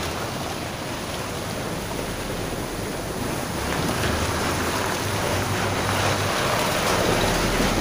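Mitsubishi Fuso dump truck's diesel engine running as it drives slowly past close by, its tyres hissing and splashing through standing water on the broken road surface. The water noise grows louder in the second half.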